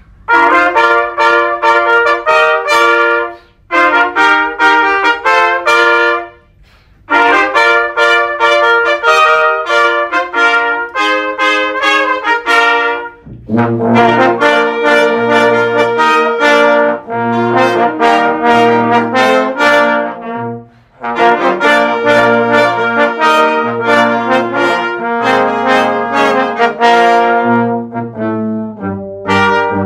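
Brass ensemble playing: trumpet-led phrases with two short breaks, then lower brass comes in about halfway through and the sound fills out.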